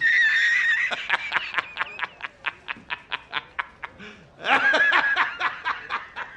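Prank fart sound effect played from a phone over a Bluetooth speaker: a squeaky high-pitched fart that breaks into a long rattle of about six pops a second. A second squeaky fart with a shorter rattle follows about four and a half seconds in.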